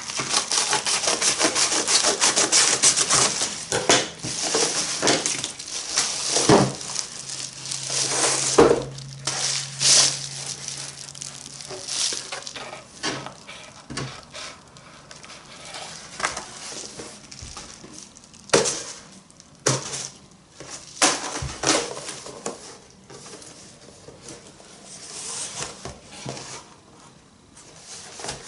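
Packaging and items being handled: rubbing and crinkling with scattered knocks, busiest in the first half.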